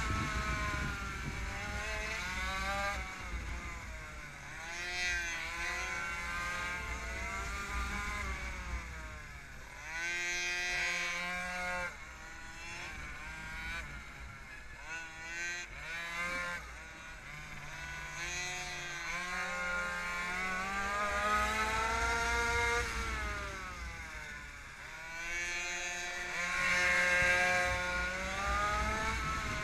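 Minimoto (pocket bike) two-stroke engine heard from onboard at racing speed, revving up along the straights and dropping off into the corners, its pitch rising and falling again and again.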